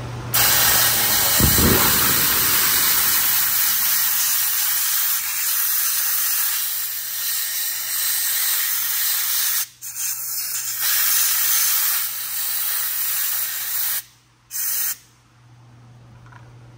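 Compressed-air blow gun with a long extension nozzle hissing as it blows out a freshly tapped thread hole in a Subaru EJ25 aluminium engine block. One long blast of about nine seconds, a brief break, another of about four seconds, then a short burst before it stops.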